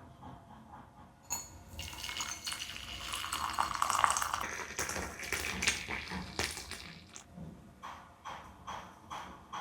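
Water pouring, building for a few seconds and then tailing off, followed by a series of light clinks and taps.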